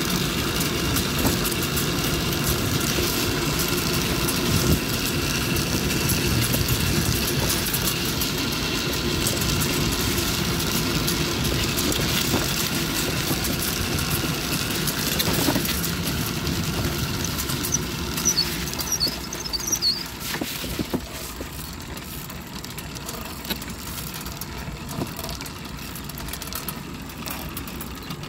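Steady rumble and hiss of a child's bike trailer rolling over pavement behind a bicycle, easing off about twenty seconds in. A few faint high chirps sound just before that.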